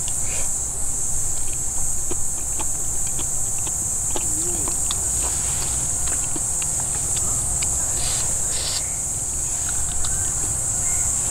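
A steady chorus of insects chirring high in pitch, with scattered light clicks of a metal spoon against a small metal camping pot.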